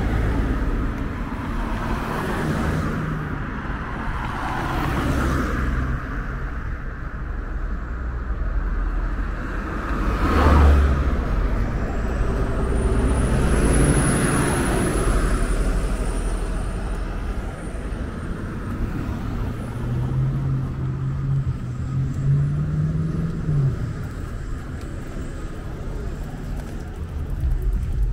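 City road traffic: cars and articulated buses passing, with one vehicle going by loudly about ten seconds in. A thin high whine rises and falls shortly after, and a low drone climbs in pitch then stops near the end.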